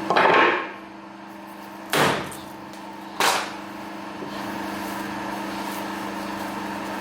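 Three sharp knocks, the first right at the start, then about two and three seconds in, each with a brief ringing tail, over a steady low hum.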